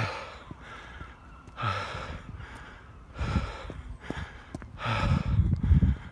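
A man breathing hard and loudly while running, a heavy gasping breath about every second and a half, four in all, the strain of running unfit without a warm-up. A low rumble joins the last breath near the end.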